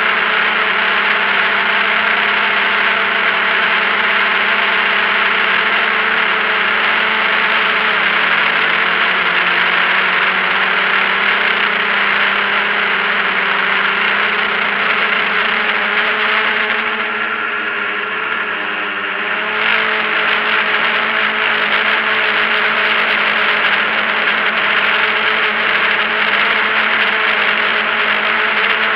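Drone's electric motors and propellers whirring steadily, heard close from the camera on board, a loud mix of several held tones and hiss. About two-thirds of the way through the sound dips briefly and its pitch wavers as the motors change speed, then it comes back to the same steady whir.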